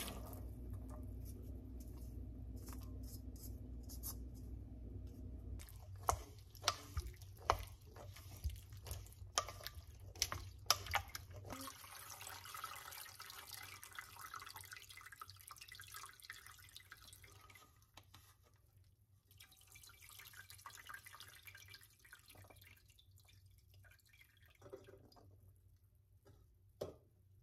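Water trickling and dripping out of drained cooked soybeans through a stainless-steel colander into a steel pot. A run of light clinks and knocks comes about six to eleven seconds in, followed by a soft trickle and two more knocks near the end.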